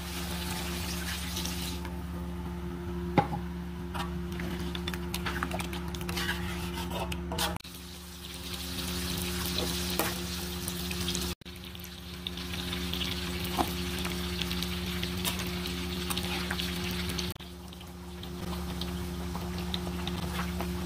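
Cooking in a large pan: coconut milk poured over chicken in spice paste, then stirring and sizzling as the rendang simmers, with a sharp knock about three seconds in. A steady low hum runs underneath, and the sound changes abruptly at several cuts.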